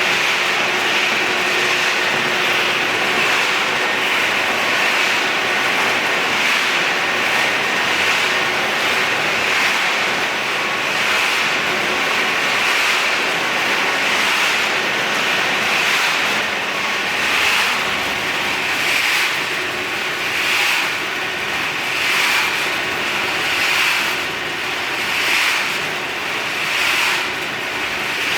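Dry pet food production machinery running with a steady mechanical hiss. In the second half it swells regularly, about once every second and a half.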